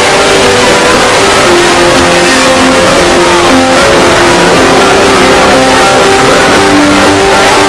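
Music played over a public-address system, held melody notes stepping from one pitch to the next over a dense wash of noise, recorded so loud that it distorts.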